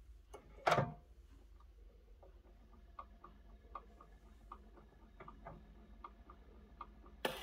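Needle of an acoustic Columbia portable gramophone set down on a spinning 78 rpm shellac record: one sharp click just under a second in, then soft, evenly spaced ticks and faint surface crackle as it runs through the lead-in groove. The music on the record starts right at the end.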